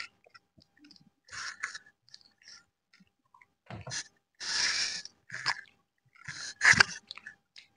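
Mouth noises of people eating cake: chewing, broken by several short, sharp breaths and gasps, with a longer breath about halfway through.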